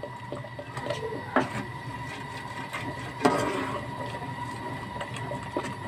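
Metal ladle stirring and mashing thick cooked chana dal and chicken in a metal pot, with scattered knocks and a scrape against the pot, the loudest about three seconds in. A steady high hum runs underneath.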